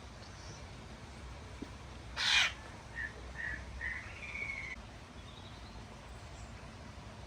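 Asian glossy starling calling: one loud, harsh screech about two seconds in, followed by three short whistled notes and a slightly longer one.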